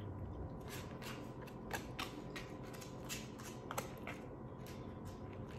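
Close eating sounds: chewing with small mouth clicks, and a plastic fork picking at food in a foam takeout container. A run of soft clicks, with a few sharper ones about two seconds in and near four seconds in.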